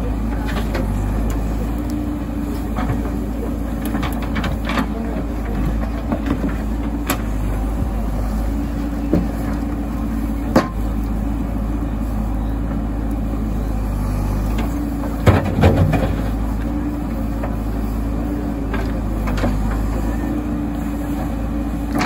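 JCB 3DX backhoe loader's diesel engine running steadily under hydraulic work as the bucket dumps, swings back and digs. Scattered knocks of rock and the steel bucket break through, the sharpest about ten seconds in and a short cluster around fifteen to sixteen seconds.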